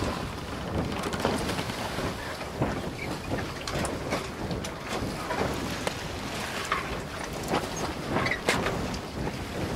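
Wind buffeting the microphone: a steady rushing hiss broken by frequent sharp crackles and pops.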